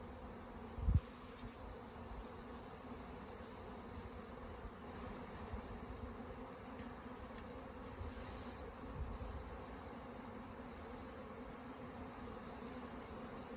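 Honey bee swarm buzzing: a steady drone of many bees flying around the hive box as they move in to the caged queen. There is a brief low thump about a second in.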